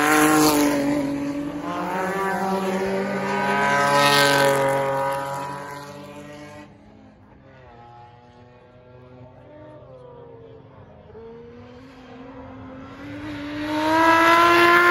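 Historic 1970s–80s touring cars racing past one after another, their engines revving loudly: one passes close at the start, another about four seconds in with its engine note rising, then more distant engines run quieter before another car closes in and passes near the end.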